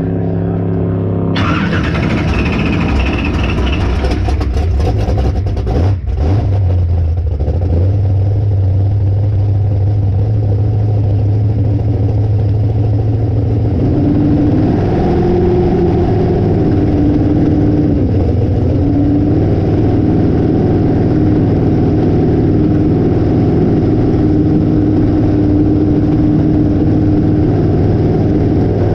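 Engine of a Hallett long-deck boat running under way, with rushing water and wind. About a second in the rushing noise grows, and about halfway through the engine note climbs and holds higher.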